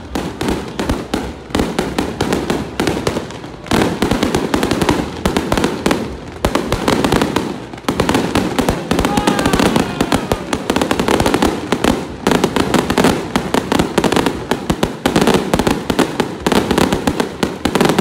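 A string of firecrackers going off: a dense, continuous rattle of sharp pops, many per second, with only brief lulls.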